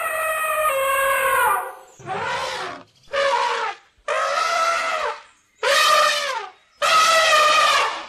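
Elephant trumpeting: a string of about six pitched calls, each around a second long with short gaps between them, several falling in pitch at their ends.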